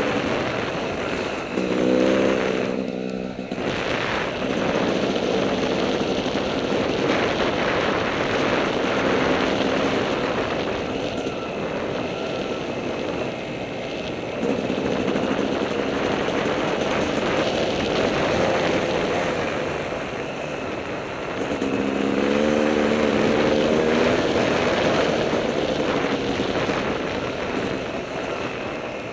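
Dirt bike engine running under way along a rough trail, revving up about two seconds in and again later, heard through heavy wind noise on the onboard camera's microphone.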